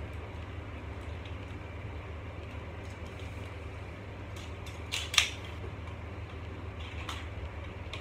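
A few sharp clicks and knocks from a tripod stand being handled and adjusted, the loudest about five seconds in, over a steady low hum.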